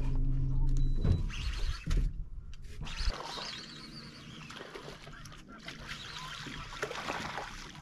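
Hooked striped bass splashing at the surface beside an aluminium boat as it is reeled in. The first second or so holds a steady low hum, which stops about a second in, and a few knocks.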